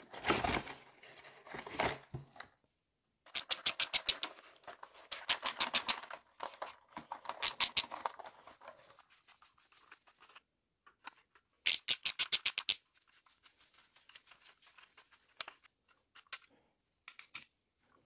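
Handling of the toy's cardboard-and-plastic box at first. Then runs of rapid, even clicking from a ratcheting screwdriver backing the screws out of a die-cast toy truck's plastic baseplate, with a few single clicks near the end.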